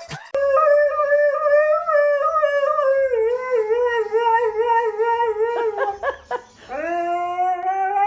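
Dog howling in two long drawn-out calls: the first wavers and slowly sinks in pitch over about five seconds, then after a short break a second one rises and holds.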